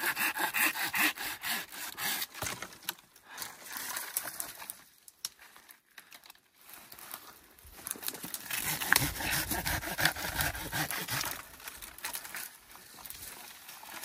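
Hand pruning saw cutting a pine branch in quick back-and-forth strokes for the first two or three seconds. After a quieter pause, dry cut branches rustle and crackle as they are dragged over dry pine needles.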